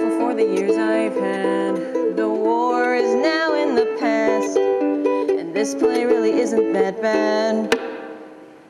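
Ukulele playing a lively passage of chords and melody, ending with one sharp final strum near the end that rings out and fades away.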